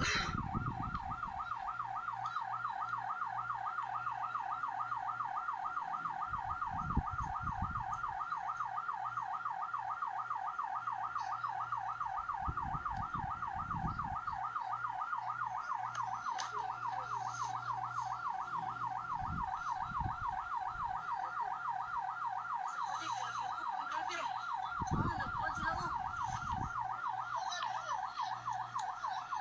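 Ambulance siren sounding in a fast, even warble that repeats several times a second, with a few low rumbles underneath.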